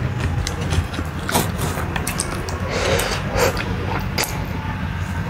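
Close-miked eating sounds: spicy fried instant noodles being slurped and chewed, with wet mouth clicks and a louder slurp about three seconds in, over a steady low hum.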